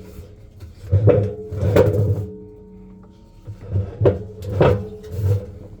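Von Hotpoint 9 kg washing machine drum running noisily, banging and knocking irregularly over a steady hum. The knocks come in two clusters, about a second in and again from about four seconds, with a lull between. This is the noise of worn-out drum bearings.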